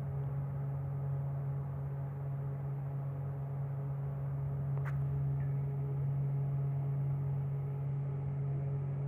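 Steady low hum, with one faint click about five seconds in.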